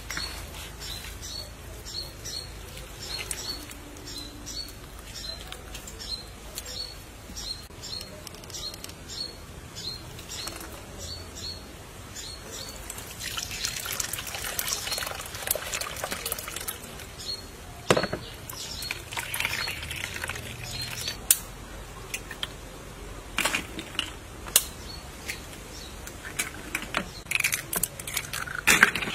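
A high chirp repeats about twice a second for the first dozen seconds. A milky liquid is then poured in a stream through a metal mesh strainer, and a few sharp knocks follow in the second half.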